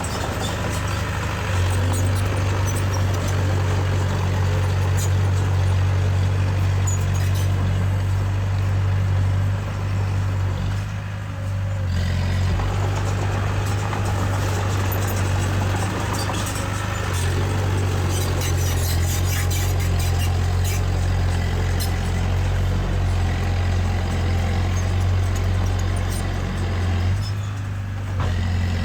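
Diesel engine of a small Komatsu D20A bulldozer running steadily while working, with scattered clicks and rattles. It eases off briefly about eleven seconds in.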